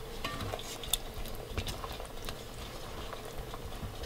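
Wooden spoon stirring chunks of braised beef in a thick sauce in an aluminium pot: soft, wet scraping with scattered light knocks of the spoon against the pot.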